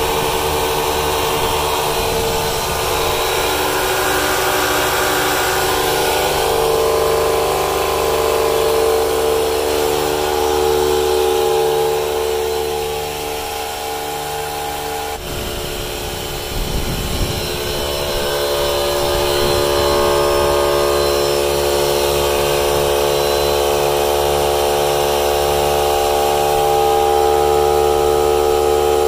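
Cordless tyre inflator pumps running steadily while filling a tyre: first the DeWalt 20V inflator, then, after a sudden break about halfway through, the Ryobi 18V cordless compressor, with a few seconds of rumbling handling noise before it settles back to a steady run.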